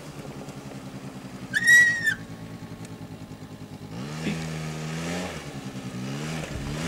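Small 49cc engine of a children's ATV running as it crosses grass. Its note climbs with throttle about four seconds in, dips, and climbs again as it draws nearer and grows louder. A brief high-pitched cry cuts in about a second and a half in.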